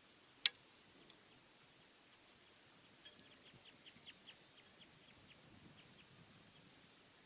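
Faint outdoor quiet broken by one sharp click about half a second in, then a quick run of short, high chirps lasting about two seconds.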